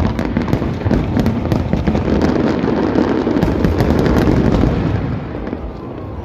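Fireworks display going off: a quick string of bangs, then dense crackling that peaks around the middle and eases off near the end.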